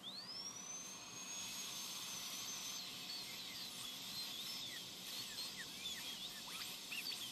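Dental drill spinning up with a quickly rising whine that settles into a steady high whine, over a hiss and scattered short chirps, as it cuts into the molar's dentin to open the access cavity.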